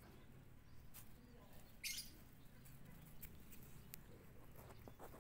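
Quiet outdoor ambience. A kitten's paws rustle dry leaf litter, with one short crackle about two seconds in and a few faint ticks.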